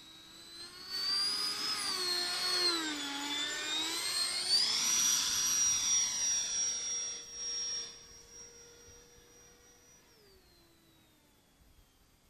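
Whine of an RC jet's 12-blade 70 mm electric ducted fan on a close pass. It grows loud about a second in, dips in pitch, climbs sharply, and fades after about eight seconds.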